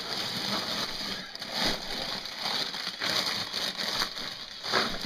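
Steady rain falling: an even hiss that swells and dips in level.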